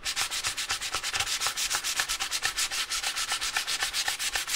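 400-grit sandpaper, wrapped on a flat brush back, rubbed in rapid, steady back-and-forth strokes over the soldered tie tops and rails of a model railway track crossing. This is a light touch-up to take off high spots.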